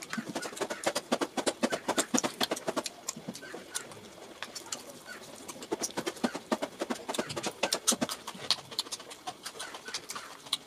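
Close-miked eating: many quick wet mouth smacks and chewing clicks, with fingers squelching as they mix rice and fish gravy.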